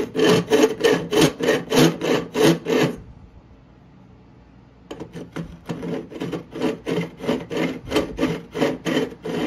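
Hand deburring tool scraping around the freshly hacksaw-cut steel end of a shotgun barrel, removing the burrs. It goes in quick rasping strokes about three a second, stops about three seconds in for nearly two seconds, then starts again.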